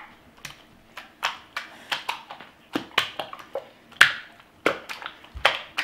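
Hands kneading and slapping sticky homemade potato-starch slime, making an irregular string of short wet smacks and squelches, two or three a second, the sharpest about four seconds in.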